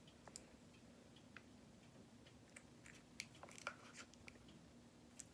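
Near silence, with a few faint clicks and taps from small jars of acrylic nail powder being turned over in the hands.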